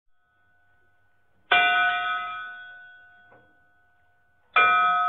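A bell is struck and rings with a clear tone of several pitches that fades over about two seconds. It is struck again near the end.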